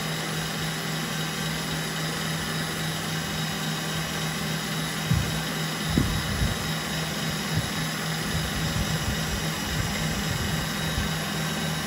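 Electric stand mixer running at high speed, its whisk beating egg whites into meringue in a glass bowl as sugar is added gradually: a steady motor hum and whir, with irregular low knocks in the second half.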